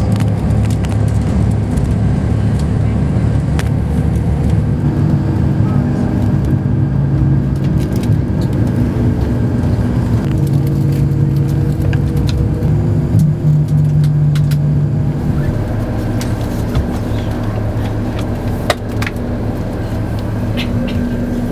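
Ride noise heard from inside a moving vehicle: a steady low engine and road rumble with a hum that shifts in pitch now and then, and scattered small clicks and rattles.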